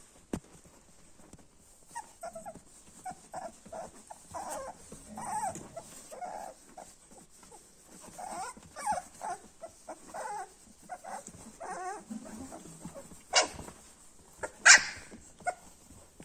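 Young Westphalian Dachsbracke puppies squeaking and whimpering in many short, high calls, with two louder, sharp yelps near the end.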